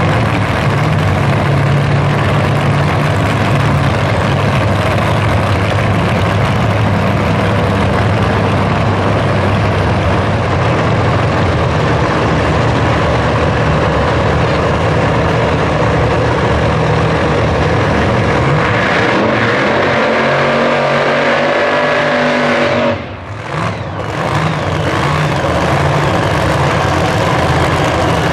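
Drag race car engines running loud and steady, with the revs climbing about two-thirds of the way through and a brief drop in level just after.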